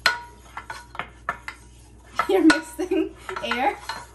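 Dishes and metal utensils clinking and knocking: one sharp ringing clink at the start, then a string of lighter knocks and taps.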